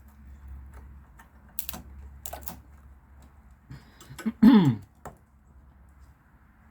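Hand tools clicking and tapping on metal in scattered, irregular strikes, with a low hum underneath that stops near the end. About four and a half seconds in, one loud, brief sound falls steeply in pitch.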